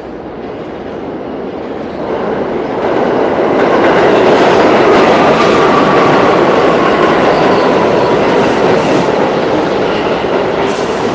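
A New York City subway train running into the station, its wheel rumble and clatter growing louder over the first few seconds and then holding steady and loud. A faint whine slides slowly down in pitch in the middle.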